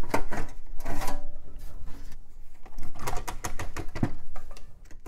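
Clicks, knocks and rattles of a Compaq Deskpro desktop being taken apart by hand: its sheet-metal case, plastic parts, drive cage and cables being handled.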